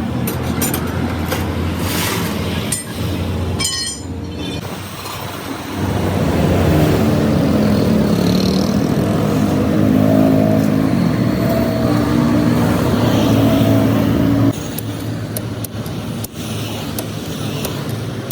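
Motor vehicle engines running in road traffic, louder for several seconds in the middle and dropping off sharply, with a few sharp metallic clicks.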